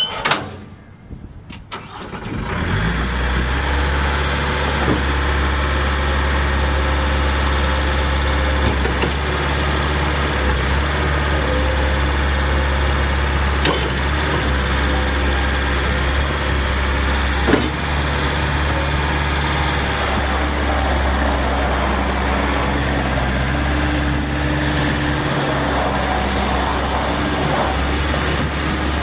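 Bobcat 753 skid steer loader's engine cranked and catching about two seconds in, then running steadily at a constant speed.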